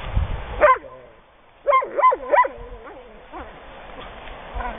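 A dog barking in short yips, each dropping in pitch: one about half a second in, then a quick run of three, and a couple of fainter ones after.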